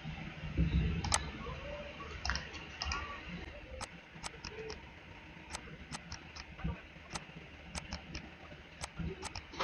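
Irregular sharp clicks of a computer mouse, about a dozen spread unevenly, as points are picked in a CAD drawing; a brief low rumble sounds about half a second in.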